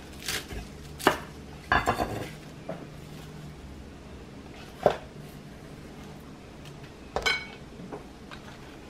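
A chef's knife knocking on a wooden cutting board as celery is chopped, then scattered single knocks and a few ringing clinks of kitchenware, the clearest about two seconds in and again near the end.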